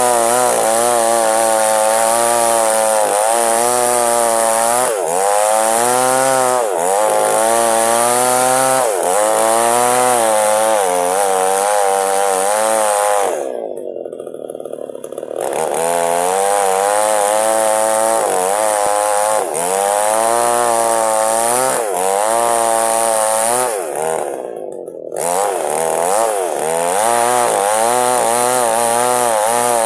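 Chainsaw ripping a log lengthwise, the engine at high revs with its pitch wavering up and down as the chain bites into the wood. The revs drop off twice, for about two seconds roughly halfway through and briefly a little later, before it is back under full load.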